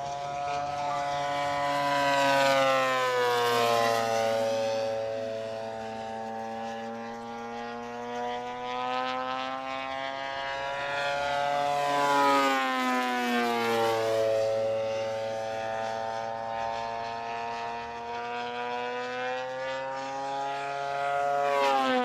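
Radio-controlled aerobatic model airplane's engine and propeller running in flight. The pitch glides up and down, and it grows loud about 3 seconds in, again about 12 seconds in and near the end.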